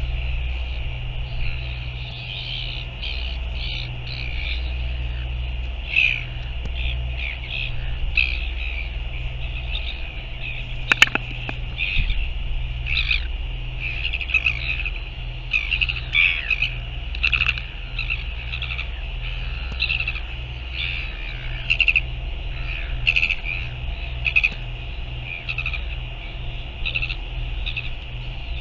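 Gulls calling over and over in short, high cries over a steady low rumble of wind on the microphone, with one sharp click about eleven seconds in.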